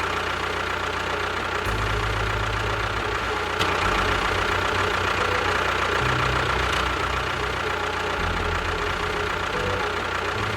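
An engine running steadily at idle, with a steady low rumble.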